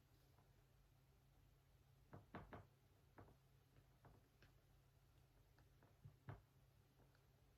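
Faint, irregular light taps in a quiet room, about eight in all: three close together about two seconds in, a few single ones after, and a louder pair near six seconds.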